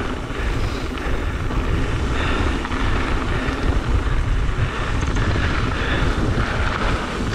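Wind buffeting the microphone over the steady rumble and rattle of mountain bike tyres rolling fast on a gravel trail.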